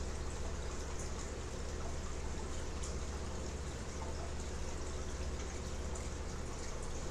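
Large aquarium's filter and water circulation running: steady splashing and trickling of water with a low hum underneath.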